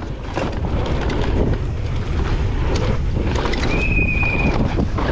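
Wind buffeting the microphone over a dense run of rattles and knocks, as from a downhill mountain bike running over a rough track. A brief high squeal holds steady for about a second, about four seconds in.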